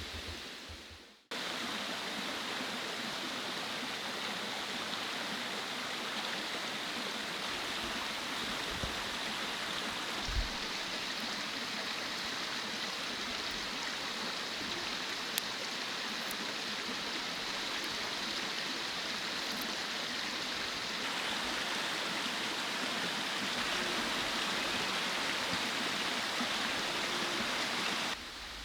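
Mountain stream rushing steadily over rocks, an even hiss of flowing water.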